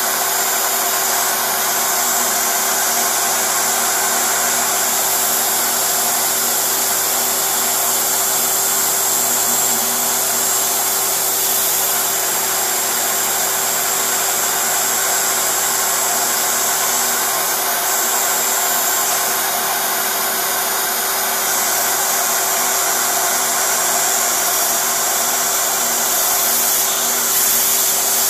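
CNC router spindle running at high speed while an end mill cuts a clear plastic block. It makes a steady, even, high-pitched whine, mixed with the rush of a dust-extraction vacuum.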